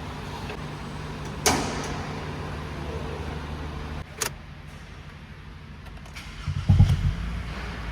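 Car engine running steadily with a low hum. A sharp knock comes about a second and a half in, a click near four seconds, and a louder low rumble near the end.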